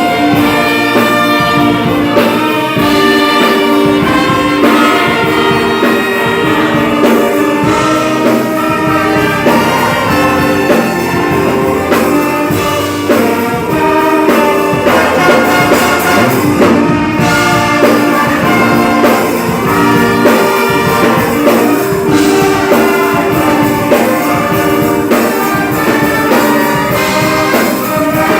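An orchestra playing, with trumpets and trombones prominent, holding chords that change every second or so over a steady beat.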